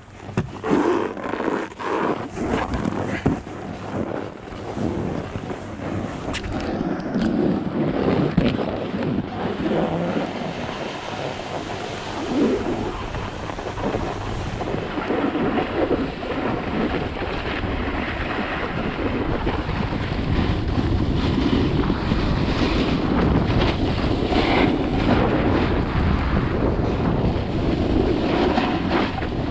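Snowboard sliding and carving over groomed, tracked snow, the base and edges scraping, with wind buffeting the camera microphone. A few sharp clicks in the first seconds; the rush grows louder over the first half and then holds steady.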